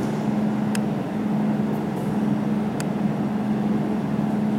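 Jewelry laser welding machine running with a steady hum, broken by two short, sharp clicks about two seconds apart.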